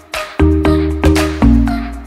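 Background music: a quick, regular run of sharply struck notes over a bass line.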